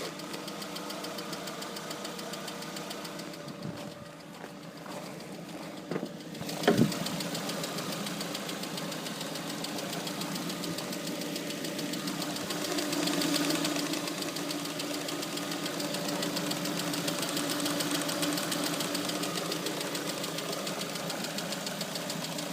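Lada Priora's 1.6 16-valve engine idling with a steady, even knock, present only when the engine is hot. New INA hydraulic lifters and camshafts have not cured it, and the owner wonders whether it is a piston. A single sharp, loud click about seven seconds in.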